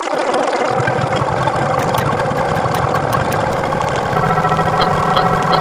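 A steady, engine-like mechanical running sound, with a light regular ticking of about three a second joining near the end.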